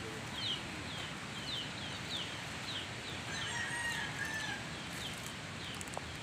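Chickens peeping: a steady series of short, high, falling chirps, nearly two a second, with a longer held call about halfway through.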